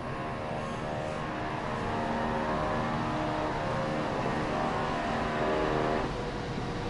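A steady mechanical drone made of several even tones. Most of it drops away about six seconds in, leaving a single tone.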